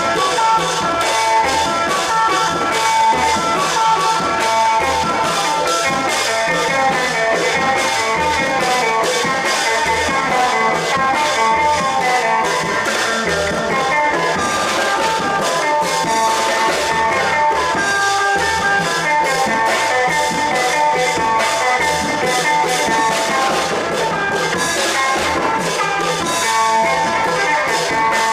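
Isan long-drum (klong yao) ensemble music: a plucked-string melody over a steady, even drum beat.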